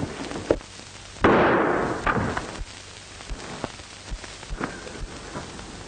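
A single gunshot about a second in: a loud, sudden crack that dies away in under a second, with a few faint knocks around it.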